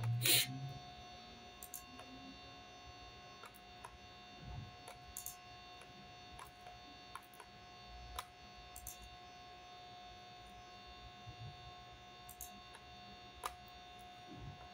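Steady faint electrical hum with scattered mouse and keyboard clicks, the loudest a sharp click right at the start.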